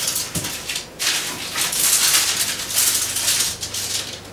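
Greaseproof baking paper crinkling and rustling as fingers press and smooth it into a metal baking tray, with a short lull about a second in.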